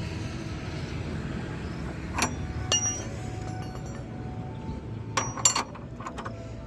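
Metal tools clinking against the motorcycle's rear-wheel hardware as nuts are worked with a spanner: a knock about two seconds in, another just after with a brief ring, and a quick cluster of clinks near the end.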